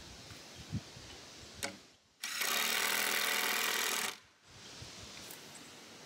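A few light knocks, then a cordless power driver runs for about two seconds in one steady burst, driving a screw to fasten a temporary wooden brace to a post.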